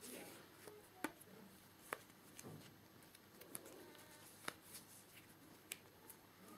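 Near silence: faint rustling of hands handling hair, with a few soft scattered clicks.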